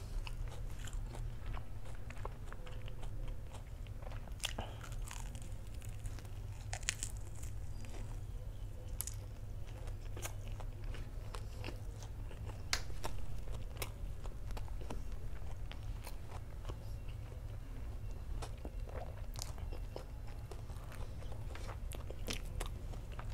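Close-up chewing and biting of a crispy fried battered sausage (Korean-style corn dog), with scattered crunches throughout over a steady low hum.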